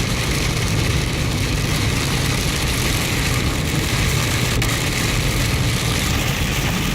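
Steady road and engine rumble inside a moving car in a heavy rainstorm, with the hiss of rain and tyre spray over it. A single faint click about four and a half seconds in.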